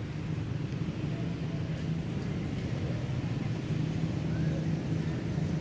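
Steady low rumble of motor-vehicle engine and traffic noise, with a faint short chirp or two above it.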